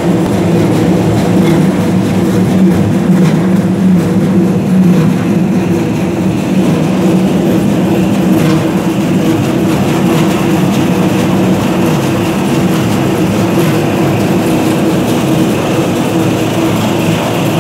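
Plastic recycling extruder line running steadily: its motor and drive give a loud, even machine hum of a few steady low pitches while it pushes plastic strands out of the die.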